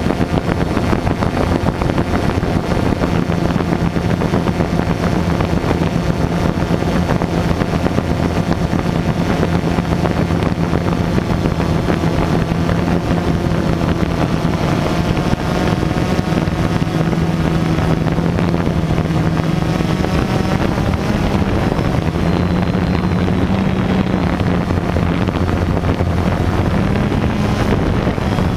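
FPV drone's motors and propellers humming steadily, mixed with wind on the microphone; the hum rises slightly in pitch about two-thirds of the way through.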